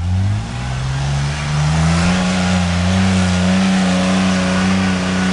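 Off-road truck's Ford 300 straight-six revving hard as it climbs a steep dirt hill in second gear: the revs shoot up at once, keep climbing for about two seconds, then hold steady at full throttle.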